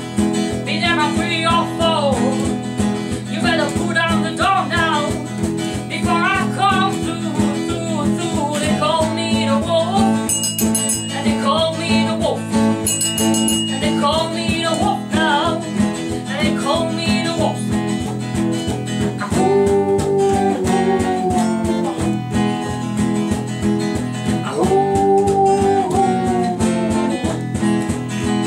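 A small group playing a song on guitars over a steady bass line, with a wavering melodic lead line on top. Two long notes are held in the second half.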